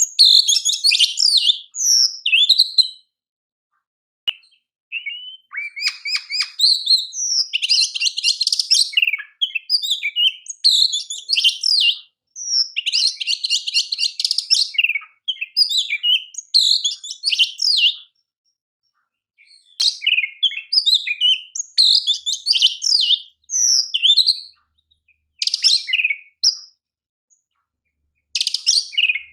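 Oriental magpie-robin singing in loud phrases of quick, varied whistles and chirps, broken by short pauses, with two stretches of fast, buzzy rattling trills about a third and half of the way through.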